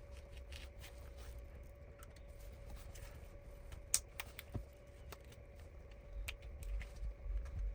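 Faint, scattered clicks and ticks of a plastic pry tool working around the edge of a Samsung Galaxy S21's glued back cover, with one sharper click about four seconds in, over a faint steady hum.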